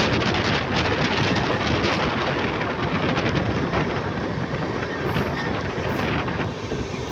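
Passenger train running, heard from an open window or door of the moving coach: a steady rush of wheels on rail and wind over the microphone, easing slightly about halfway through.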